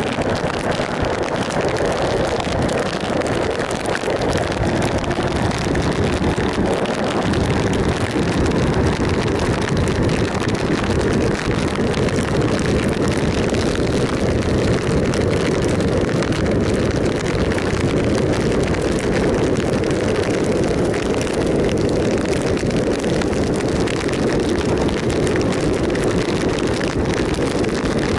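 A 2007 Triumph Sprint ST 1050 being ridden at a steady speed: its three-cylinder engine running evenly under wind rushing over the microphone.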